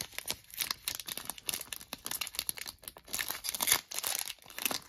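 Wrapper of a trading-card pack crinkling and rustling in the hands as the pack is handled and opened.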